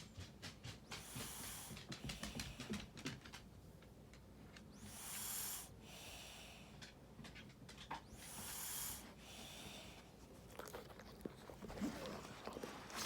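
Someone snoring in sleep: four hissing breaths, about one every three and a half seconds, with soft clicks between them.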